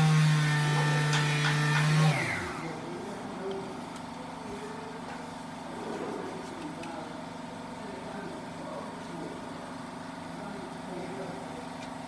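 A motor-driven machine hums steadily, then switches off about two seconds in and winds down with a falling pitch. A faint steady hum and faint voices follow.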